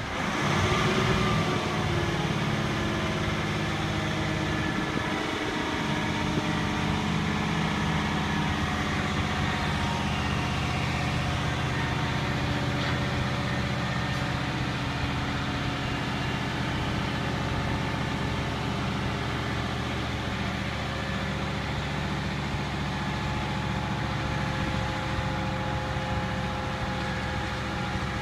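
Grove TMS 250A truck crane's diesel engine working the boom and hoist. It picks up revs at the start, its pitch shifts over the first few seconds, and then it runs steadily with a thin steady whine above the engine note.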